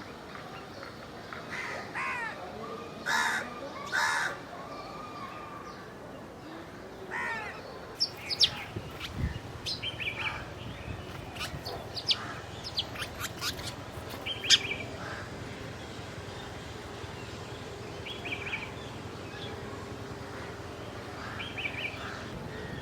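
A crow caws about four times in the first several seconds, harsh calls with several pitches stacked. After that, small birds chirp in quick short notes, with a brief trill repeated now and then.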